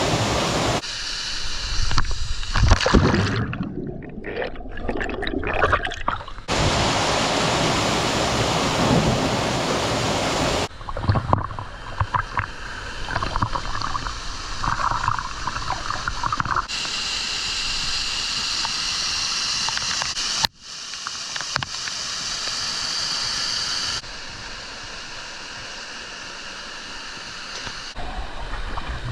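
Rushing water of a waterfall, in a string of short clips cut together, so the loudness and tone change abruptly every few seconds. Some clips carry irregular, closer knocks and uneven sounds over the steady rush.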